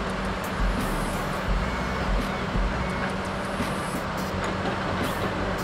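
Diesel engine of a Tigercat knuckleboom log loader running steadily at a constant pitch as it works its boom, with scattered light ticks and knocks.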